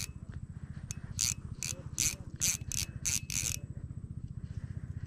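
Ryobi fishing reel clicking in a quick series of short bursts that stop about three and a half seconds in, over a steady low engine chug.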